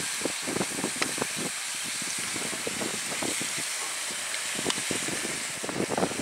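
Wind hissing steadily across the microphone, with scattered soft knocks and clicks.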